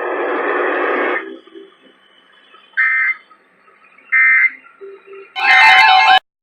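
Emergency Alert System end-of-message data tones over radio: three short, shrill two-tone digital bursts about 1.3 seconds apart, marking the end of a National Weather Service flash flood warning. The third burst is louder and cuts off abruptly, after about a second of radio audio at the start.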